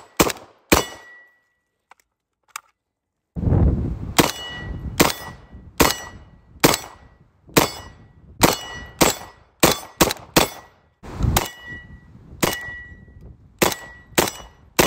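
Type 81 light machine gun in 7.62x39 firing single shots: two, a pause of a couple of seconds, then a steady string of about sixteen more at roughly one or two a second until the magazine runs dry. Many shots are followed by the short ring of a hit steel target.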